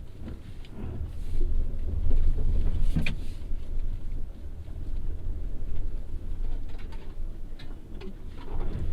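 Subaru Forester e-Boxer hybrid driving off-road: an uneven low rumble that swells and fades, with scattered knocks and a sharp crack about three seconds in.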